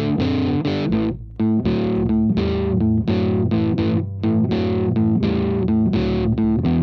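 Background rock music: distorted electric guitar and bass striking chords in a steady rhythm, with a brief drop-out about a second in.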